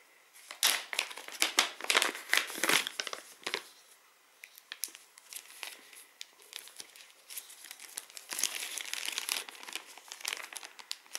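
Packaging being handled: a crinkly plastic bag and a paper sheet crinkling in the hands. A louder bout of crinkling in the first few seconds, a quieter stretch with a few small crackles, then another bout of crinkling near the end.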